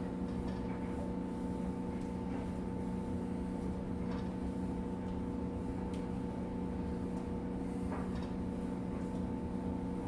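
Steady mechanical hum of a running kitchen appliance motor, holding the same pitch throughout, with a few faint soft taps as raw marinated chicken wings are set on a metal wire rack.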